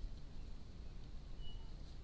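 Faint outdoor ambience: a low steady rumble and hiss, with a single thin, high whistled bird note about one and a half seconds in and a faint click near the end.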